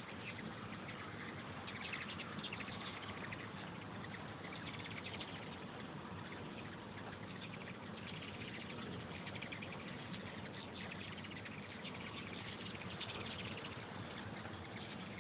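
Many hummingbirds flying around feeders: the steady buzzing hum of their wings, with many rapid high chittering calls over it.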